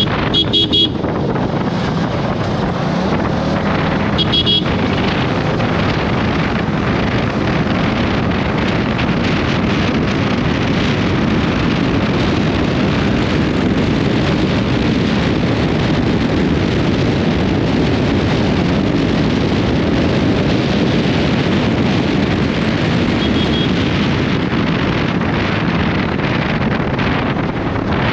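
Wind rushing over the microphone on a moving Yamaha R15 V3, its 155 cc single-cylinder engine running under it at road speed. Two brief high beeps come near the start, about four seconds apart.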